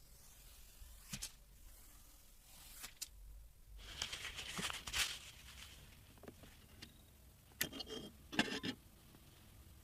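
Hands handling PC parts and their packaging: a few sharp clicks and taps, and a stretch of rustling and scraping about four seconds in, with a quick cluster of clicks near the end.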